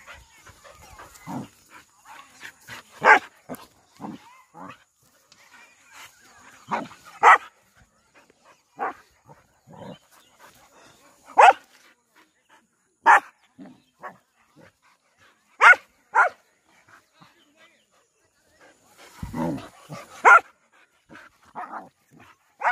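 Dogs play-fighting and barking: about seven short, sharp single barks a second or more apart, with quieter scuffling and grumbling sounds in between.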